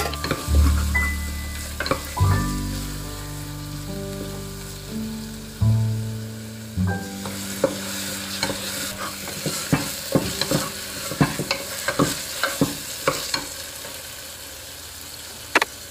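Spice masala sizzling in oil in a pressure cooker while a spatula stirs it, scraping and knocking on the pot in quick irregular clicks through the second half. Soft background music with held notes plays over the first half and stops about seven seconds in.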